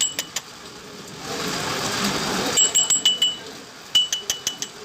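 Metal hand tools and parts clinking against each other: sharp metallic clinks with a brief ring, in quick clusters near the start and again in the second half, with a stretch of rushing noise between them.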